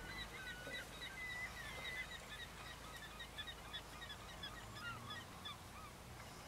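Birds calling: a rapid, overlapping string of short chirping calls, thinning out near the end, over a faint low rumble.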